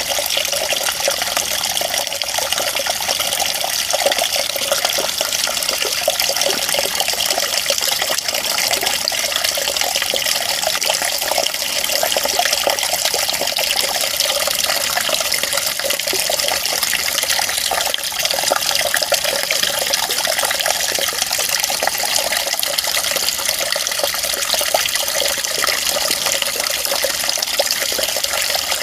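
Running water making a steady, even rush without pause, light and hissy with no deep rumble.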